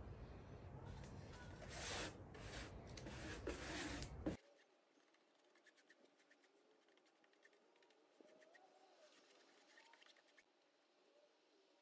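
Paintbrush stroking wet epoxy resin onto a fibreglassed wooden boat hull: soft, scratchy strokes repeating every fraction of a second. About four seconds in, the sound drops suddenly to near silence with only faint ticks.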